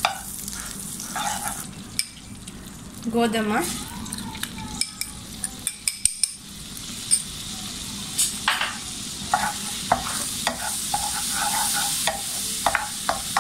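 Melted butter sizzling in a non-stick wok while a spatula stirs and scrapes across the pan, with frequent sharp clicks and knocks of the utensils against the pan. Flour is spooned into the hot butter partway through and stirred in, the start of a roux for a white sauce.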